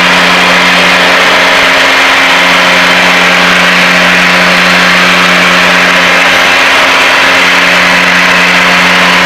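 Cabin noise of a Piper Seneca twin-engine plane in cruise: both piston engines and propellers droning steadily, a loud constant roar with a low hum that wavers slightly now and then.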